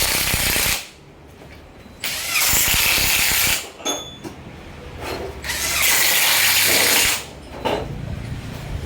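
Three bursts of rattling, hissing mechanical noise, each lasting about one to one and a half seconds, with short pauses between them.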